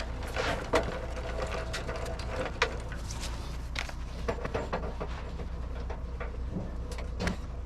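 A UTV engine idling steadily under a scatter of metal clanks and knocks from work on the sawmill trailer's jacks and tongue.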